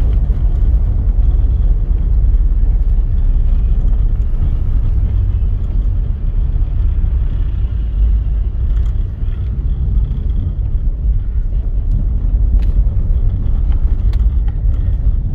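Steady low rumble of a car's engine and tyres heard from inside the cabin while driving along a town street, with a few faint clicks late on.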